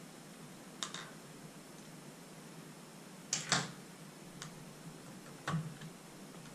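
Light clicks and taps of a screwdriver and the plastic housing of a Dyson DC43 handheld vacuum as screws are taken out: a pair about a second in, a louder double click midway, and two smaller ones after it.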